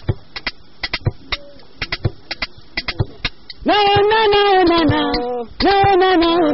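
Live music: sharp, irregular percussion strokes, then a little past halfway a loud voice comes in singing two long held notes, each sliding slightly at its end.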